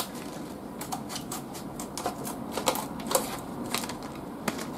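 Handling and opening a fountain pen's paper and cardboard packaging: irregular light clicks, ticks and rustles, with a few sharper clicks near the middle and end.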